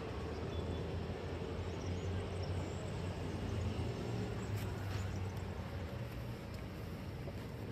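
Steady outdoor town ambience: a low, even rumble of distant road traffic, with a few faint clicks near the middle.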